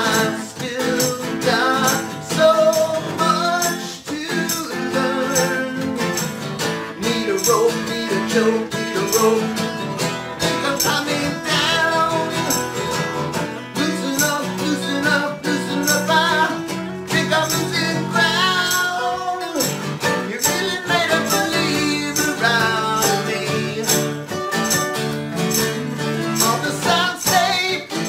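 Two acoustic guitars strummed together in a song with a steady rhythm.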